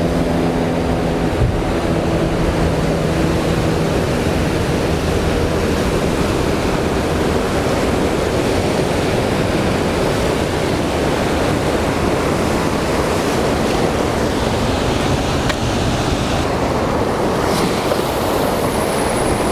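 Rough ocean surf breaking over coastal rocks: a loud, steady wash of churning waves.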